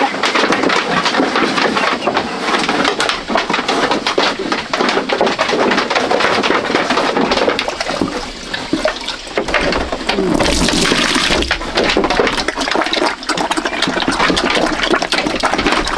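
Water pouring and splashing, a steady rush of noise full of small knocks, briefly louder and hissier about two-thirds of the way through.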